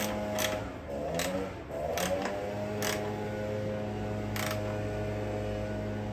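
Socket wrench tightening the mounting bolt of a plastic coolant expansion tank: about six sharp, separate clicks spread over a few seconds, over a steady low hum.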